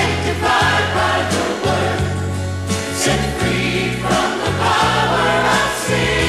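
Large gospel choir singing with a full band behind it, over a strong bass line that changes note on the beat.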